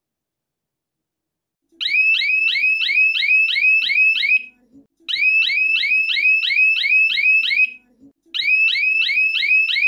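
Small 12 V DC electronic siren sounding, high-pitched and loud, with fast rising sweeps at about three a second. It starts about two seconds in and sounds in three bursts of a couple of seconds each, with short breaks between them.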